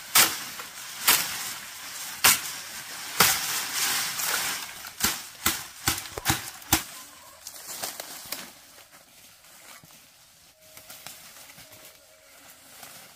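Repeated sharp blows, about one a second, then several in quick succession, over rustling. After about eight seconds they stop and it turns much quieter.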